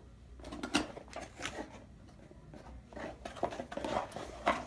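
Small cardboard box being handled and opened by hand: scattered light taps, scrapes and rustles of the box and its lid, busier near the end.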